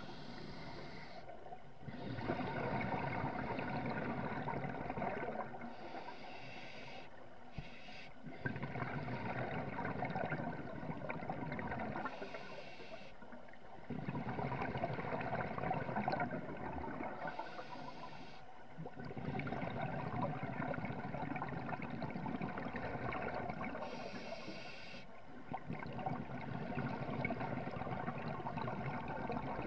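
Scuba regulator breathing underwater: a short hiss on each inhale, then several seconds of gurgling exhaust bubbles on each exhale, repeating roughly every six seconds.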